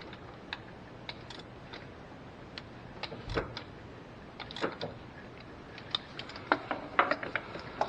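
Irregular metal clicks and knocks of an oil filter wrench being fitted and worked around a spin-on oil filter to break it loose, with a duller knock about three seconds in and a busier run of clicks near the end.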